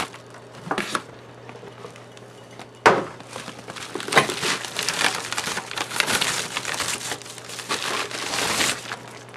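Plastic courier mailer bag crinkling and rustling as it is handled, after a quieter stretch of rustling in foam packing peanuts. A sharp knock just before the crinkling starts, about three seconds in.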